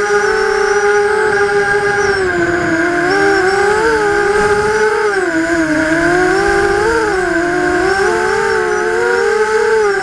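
Vortex FPV racing quadcopter's electric motors and propellers whining, heard from the quad's onboard camera. The pitch rises and falls with the throttle as it flies, dipping lowest about halfway through and climbing again after.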